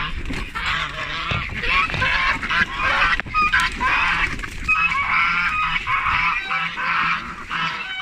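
A flock of domestic ducks and other poultry calling together: many loud, overlapping calls.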